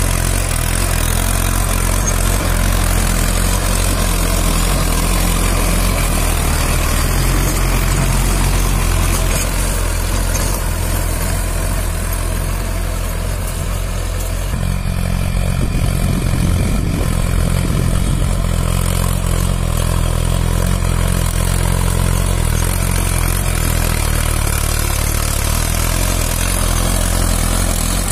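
Mahindra Arjun Ultra-1 555 DI tractor's four-cylinder diesel engine running steadily under load while pulling a rotary tiller through dry soil.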